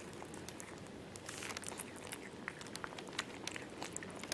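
Faint scattered clicks of a mother cat licking her newborn kitten and chewing the afterbirth.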